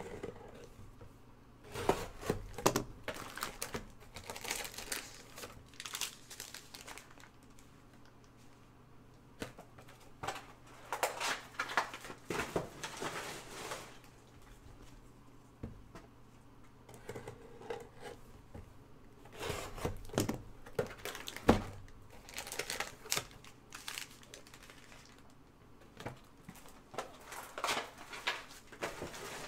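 Plastic shrink-wrap and foil trading-card packs crinkling and tearing in repeated bursts as sealed card boxes are opened and their packs pulled out, with short pauses between; a single sharp knock stands out about two-thirds of the way through.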